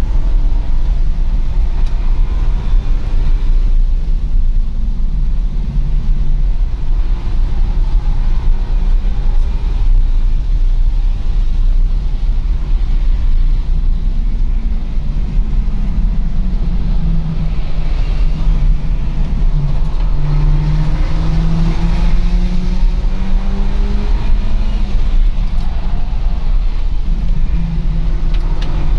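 A BMW's engine and road noise heard from inside its cabin while it is driven hard on a race track. The engine note rises and falls with throttle and gear changes over a constant heavy low rumble from tyres and wind.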